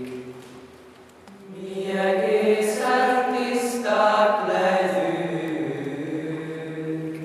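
Boys' and young men's choir singing a Gregorian hymn in plainchant, unaccompanied, in a reverberant hall. A phrase dies away at the start, and a new phrase begins about a second and a half in and is held until near the end.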